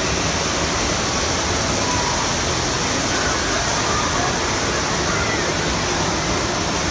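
Steady rushing and splashing of moving water in an indoor water park's lazy river and pool, with faint voices in the background.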